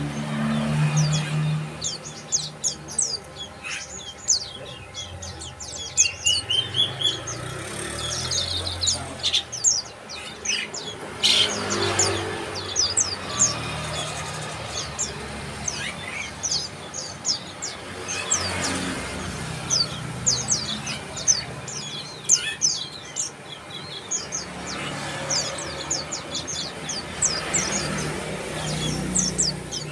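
Bar-winged prinia calls: rapid runs of short, sharp, high-pitched chirps, coming in bursts with brief pauses between them.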